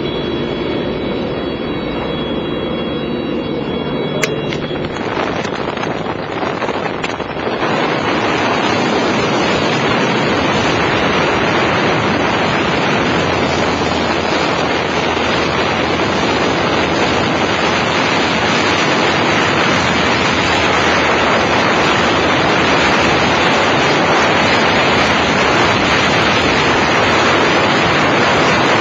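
An airplane's engine drones with a steady pitched hum, broken by a sharp click about four seconds in. From about seven seconds on, a loud, steady rush of wind on the microphone takes over: the airflow of freefall after diving out of the plane.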